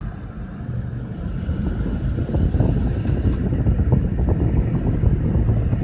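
Steady low rumble of a vehicle running, with wind buffeting the microphone.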